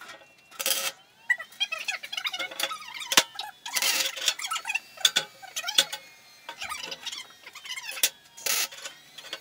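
MIG welder (Stel Iron MIG 221p) laying short tack welds on steel: three brief bursts of arc crackle, about a second in, near the middle and near the end.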